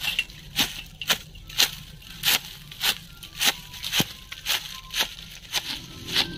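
Manual hedge shears snipping through creeping fig vine leaves and stems in a steady rhythm, about two short sharp cuts a second.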